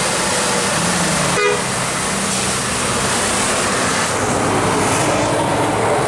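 Tour bus sounding its multi-note 'telolet' musical air horn in short tones, over engine and road noise.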